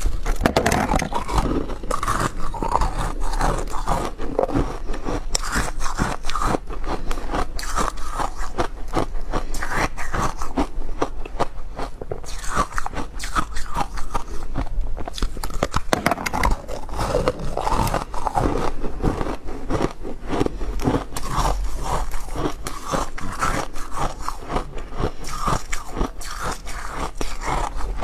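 A person biting and crunching through a cluster of frozen ice balls, close to the microphone: dense crackling crunches one after another without a pause.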